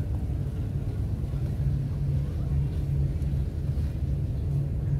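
Steady low outdoor rumble, with a low hum that swells and fades every second or so.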